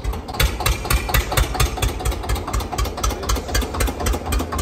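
Old diesel tractor engine idling, with a steady, rapid knocking beat of several strokes a second.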